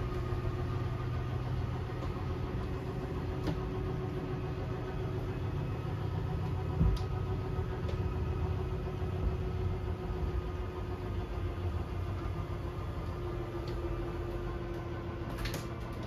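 Travel trailer's electric slide-out motors running steadily as the slide room extends: a low mechanical hum, with a single thump about seven seconds in.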